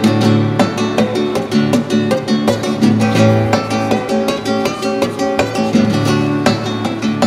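Nylon-string classical guitar played solo, a quick run of plucked and strummed notes over a ringing low bass note.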